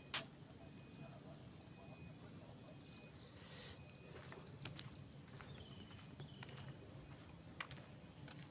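Faint crickets and other insects: a steady high trill with short, evenly repeated chirps, and a single click just after the start.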